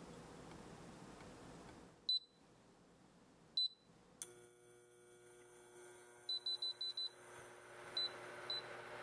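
Electronic beeps from an electric cooktop's touch controls: two single beeps, then a quick run of about six, then two more. About four seconds in, a steady hum with a faint whine sets in as the hob starts heating.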